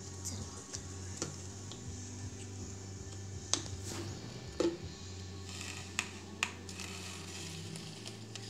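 A paintbrush dabbing and scraping paint in a cardboard box used as a palette, with a few sharp taps and clicks from the brush and plastic paint bottles. A steady low hum runs underneath.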